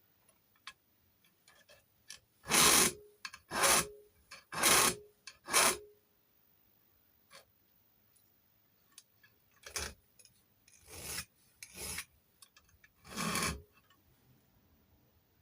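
A hand file rasping across a lever-lock key blank in short strokes: four strokes, a pause of a few seconds, then four more. The file is taking metal off the blank where the lock's levers have marked it during impressioning.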